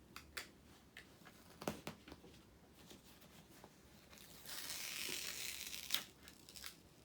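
Diamond painting canvas and its plastic cover film being handled: scattered light taps and clicks, then about four and a half seconds in a rustling, peeling sound of the film lasting about a second and a half, ending in a sharp tap.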